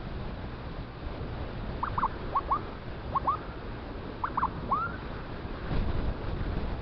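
Wind and road noise from riding in traffic, with a run of short, sharp chirps in quick pairs between about two and five seconds in.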